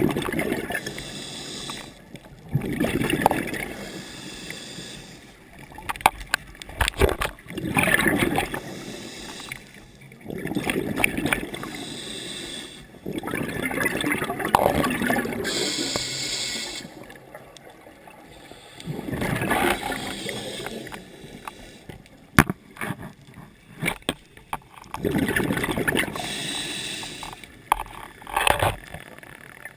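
Scuba diver breathing through a regulator underwater: hissing breaths alternating with gurgling bursts of exhaled bubbles, in a cycle of a few seconds, with a few sharp clicks.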